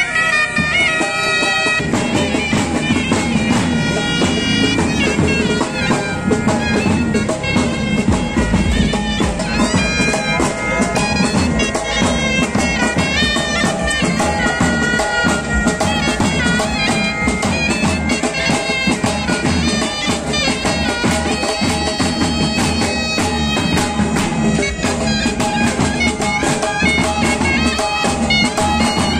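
Pipe band playing live: bagpipes carrying a tune over their steady drones, with drums beating along. The sound grows fuller about two seconds in.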